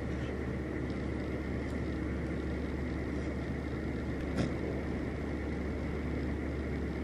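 Steady low hum and rumble of room noise, with one faint click about four seconds in.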